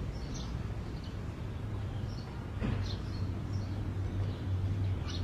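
Outdoor ambience: a few short, high bird chirps over a steady low rumble, with a single knock about two and a half seconds in.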